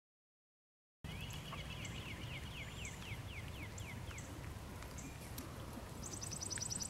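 After a second of silence, outdoor ambience starts with a low steady rumble. A songbird sings a quick run of descending chirps, about three or four a second. Near the end a very fast, high-pitched trill comes in, the same note repeated.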